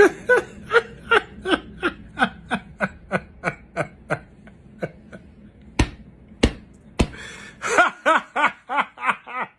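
Rhythmic laughter, evenly paced at about three "ha"s a second, each one falling in pitch. About six seconds in it breaks for three sharp clicks roughly half a second apart, then the laughing resumes in quicker bursts.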